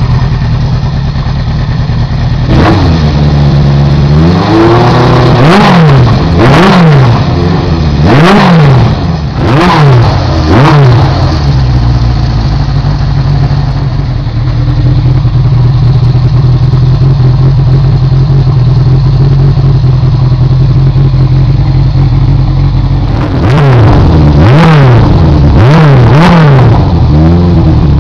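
1976 Honda CB750's air-cooled inline-four engine breathing through a new MAC aftermarket exhaust, idling and blipped on the throttle. It revs up and drops back about five times in the first part, idles steadily for about ten seconds, then revs several more times near the end.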